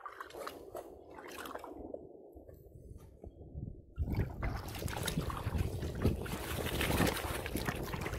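Water trickling and sloshing around an inflatable kayak in shallow creek water, turning louder and rougher about four seconds in.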